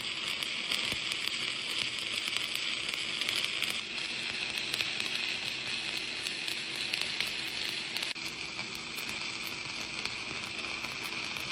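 Welding arc running a bead on a steel T-joint: a steady, dense crackling sizzle with many sharp pops. It eases a little near the end, then stops as the arc is broken.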